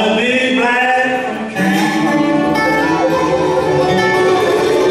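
Live bluegrass band playing: acoustic guitar, banjo, mandolin, dobro and upright bass together, with sliding notes in the first second or so.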